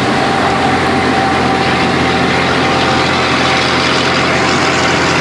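Scania 112 truck's diesel engine running steadily at an even speed, without revving.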